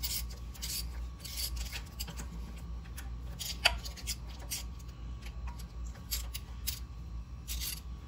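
Irregular rustling, scraping and light clinking from hands working on a truck's front wheel hub and its loose parts, with one sharp click about three and a half seconds in.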